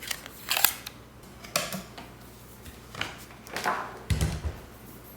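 Handling noises on a Breville Oracle espresso machine: several short clicks and scrapes, then a dull low thump about four seconds in.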